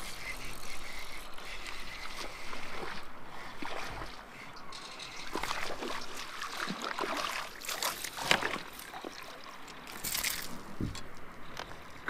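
Water splashing and trickling as a hooked smallmouth bass thrashes at the surface beside a kayak, with a few sharper splashes in the second half.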